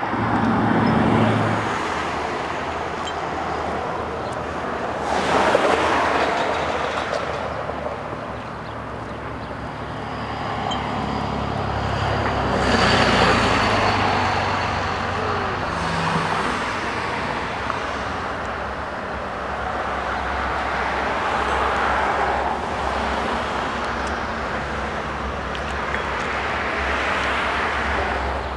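Passing road traffic: cars and trucks swell and fade every several seconds over a low steady rumble.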